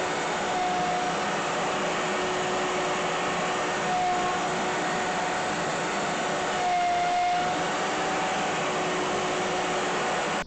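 Router motor running steadily while it cuts across a burr oak slab on a Woodpeckers slab flattening mill, a constant machine whine that cuts off suddenly at the end.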